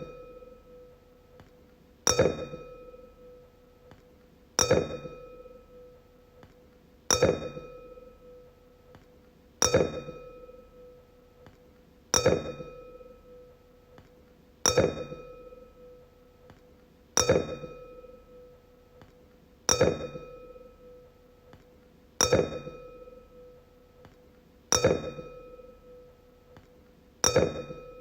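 Wine glass struck about every two and a half seconds, eleven times: each tap gives a sharp clink and a clear ringing tone that fades away before the next.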